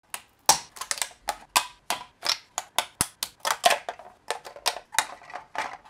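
Sharp plastic cracks and clicks, irregular at about three or four a second, as white 3D-printed parts are snapped and popped off a flexible black printer build plate.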